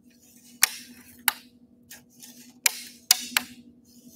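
Sharp clicks and taps from a fishing rod and reel being handled as a lure is tied on. There are about five, irregularly spaced, over a steady low hum.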